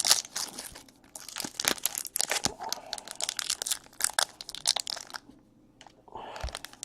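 A trading-card pack wrapper crinkling and tearing as a pack is opened: dense crackling that stops about five seconds in.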